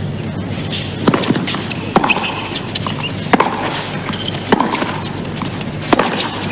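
Tennis ball struck back and forth with rackets in a baseline rally: about five sharp hits, one every second to second and a half.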